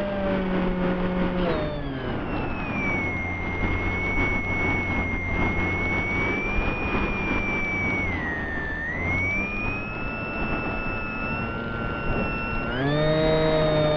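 Radio-controlled model plane's motor and propeller heard from the onboard camera, whining over a rush of wind on the microphone. The motor throttles down about a second and a half in, dips briefly past the middle, and throttles back up near the end.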